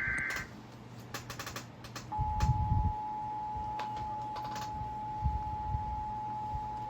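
The last of an Emergency Alert System SAME header data burst ends in the first half second, then about two seconds in the steady two-tone EAS attention signal starts and holds. Scattered sharp clicks like keyboard taps and a few low thumps, loudest just as the tone begins, sound over it.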